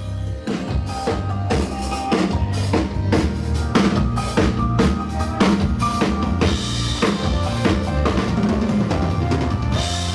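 A full drum kit, with kick, snare and rimshots, played over the instrumental intro of a sertanejo backing track, with a steady quick beat and held keyboard or guitar notes underneath. There is no singing yet.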